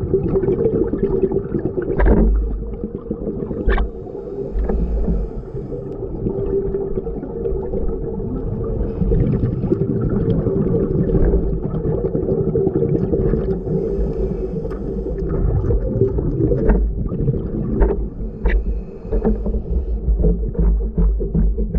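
A steady low motor hum with gurgling water sounds, broken by a few sharp clicks.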